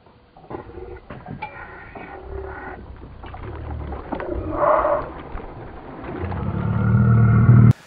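A hooked common carp being played on a spinning rod beside a small boat: the fish splashes at the surface among scattered clicks and rattles. A low rumble builds over the last two seconds and cuts off suddenly.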